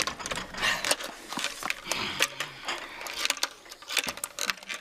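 An old black desk telephone being handled: irregular clicks, knocks and rattles as the handset and base are picked up and worked to place a call.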